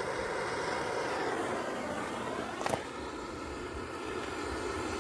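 Handheld gas blowtorch burning with a steady hiss, with one sharp click a little past halfway.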